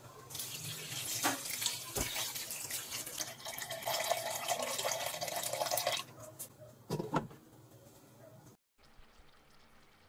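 Water pouring into a large pot of raw pork ribs, a steady rushing splash that stops abruptly about six seconds in. A couple of short knocks follow about a second later, then only a faint hiss.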